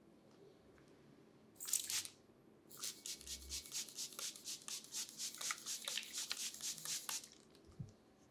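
A barber working on a client's hair: a brief rustle, then a quick run of short, sharp scratchy strokes lasting about four seconds before stopping.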